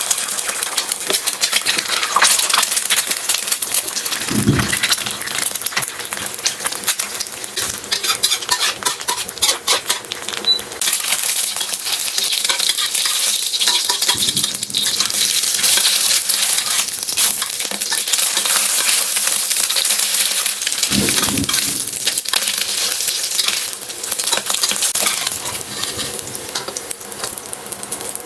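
Food sizzling and crackling in hot oil in a frying pan, with small clinks and scrapes of a utensil against the pan, and a dull low thump twice.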